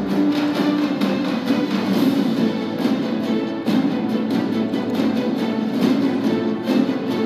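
Orchestral film-score background music playing steadily, with a regular beat.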